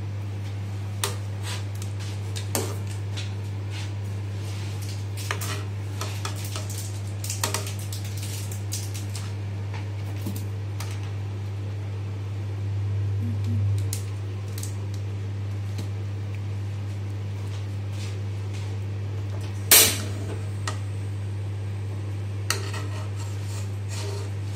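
Metal ladle clinking against the side of an aluminium pot of broth now and then while stirring, with one louder clank about twenty seconds in, over a steady low hum.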